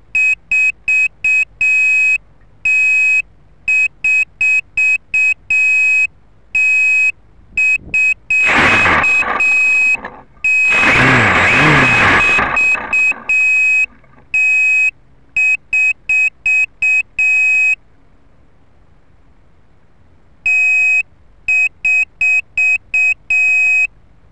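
Small piezo buzzer on the crashed quadcopter beeping loudly in repeating patterns of one longer beep followed by a run of quick short beeps, all on one high pitch. For about five seconds around the middle, a loud rushing noise rises over the beeping.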